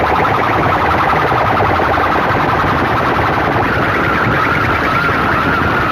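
Banks of horn loudspeakers on a competition sound rig playing at high volume: a dense, harsh wall of sound with a low pulsing underneath and a wavering high tone that grows stronger about two-thirds of the way in.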